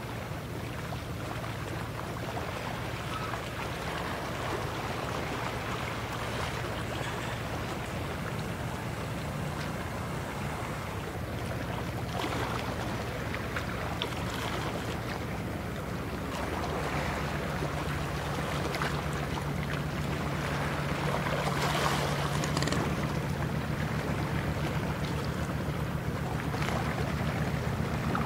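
Steady low drone of ships' diesel engines over the wash of water, growing louder about halfway through as a vessel passes close, with some wind on the microphone.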